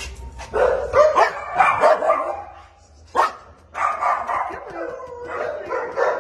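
Dog barking and yipping in two bouts, with a short lull about three seconds in.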